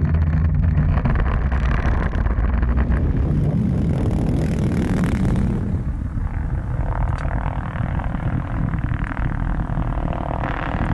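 Rock-trench blasting for a pipeline: a heavy, deep rolling rumble that is strongest over the first five seconds, then eases into a steadier, lighter rumble.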